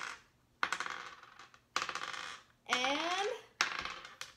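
Small dice rolled onto a wooden tabletop three times, each roll a quick clatter that dies away. A short rising vocal exclamation comes about three seconds in.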